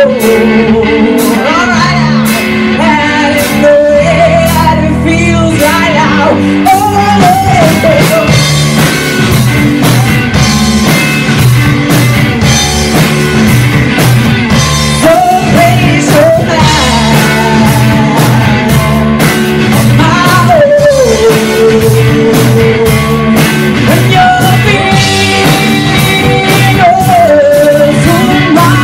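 Live rock band playing: a woman singing lead over electric guitar, bass guitar and a drum kit, with a steady drum beat throughout.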